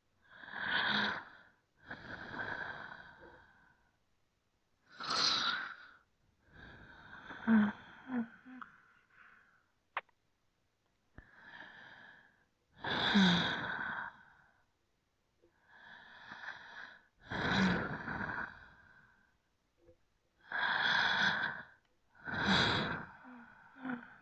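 A person breathing slowly and deeply, each inhale and exhale lasting about a second with short pauses between, about five breath cycles. A few breaths carry a touch of voice.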